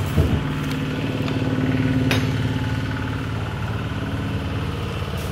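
A workshop machine's electric motor running with a steady, even hum. There is a short falling whine at the start and a single sharp click about two seconds in.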